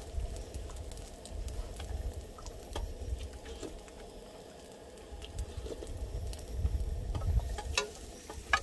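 Scattered light clicks and scrapes of a wooden spoon and chopsticks against a steel frying pan and a metal pot during eating, over a low, uneven rumble.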